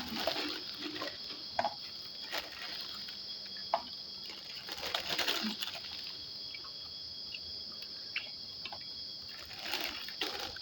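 Close eating sounds: chewing and mouth smacking with scattered short clicks, the sharpest at the very start and again nearly four seconds in, over a steady high-pitched background drone.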